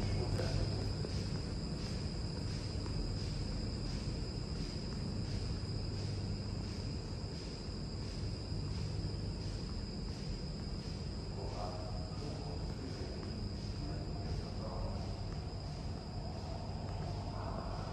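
Background noise of an empty underground metro platform: a steady low hum with a high, thin whine that pulses about twice a second.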